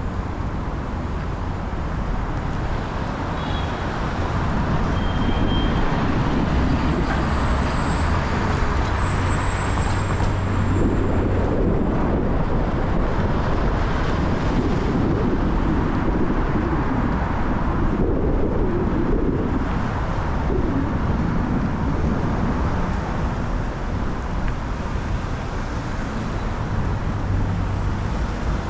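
Car driving through city traffic: steady road and tyre noise with a low rumble, no sharp events.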